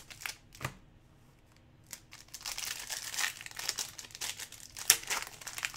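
A few light clicks, a short lull, then from about two seconds in the crinkling and tearing of a trading card pack's wrapper being torn open, with one louder crackle near the end.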